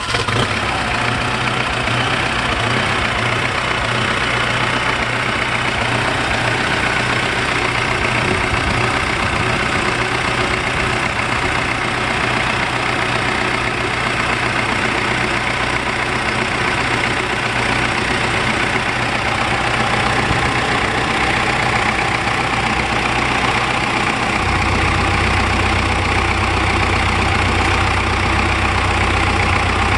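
Diesel engine, out of its vehicle and set on the ground for a test run, idling steadily just after being started. About 24 seconds in, its low drone grows stronger.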